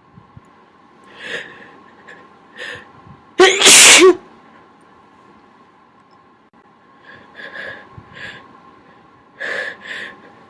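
A person sneezing: a couple of short, sharp inhales build up to one loud sneeze about three and a half seconds in, followed later by several more short, gasping breaths.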